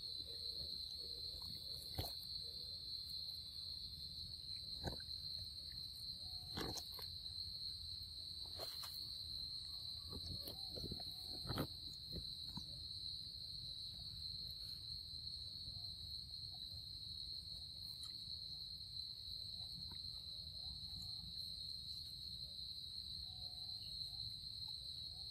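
A steady, high-pitched insect chorus drones throughout, with a few scattered soft clicks and smacks as macaques chew mango.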